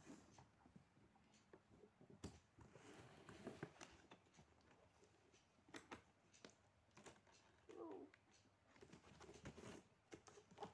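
Faint handling of a toy's cardboard box and plastic packaging: scattered light clicks, taps and rustles in a small room.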